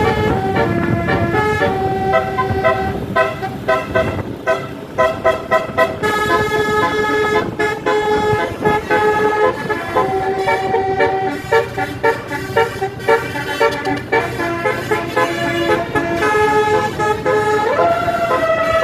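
A 36-note Basuri telolet musical air horn on a tour bus playing a tune, with a run of quick short notes about four seconds in and then longer held notes stepping up and down in pitch, over a low vehicle rumble.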